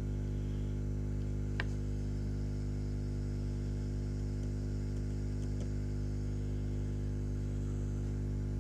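Steady electrical mains hum, a low buzz made of several even tones, with one faint tick about one and a half seconds in.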